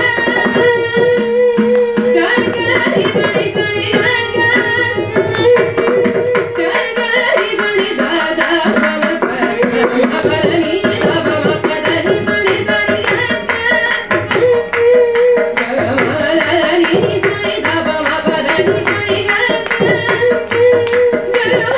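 Carnatic vocal music: two women singing with many held notes shaken in ornaments, accompanied by violin and brisk mridangam drumming.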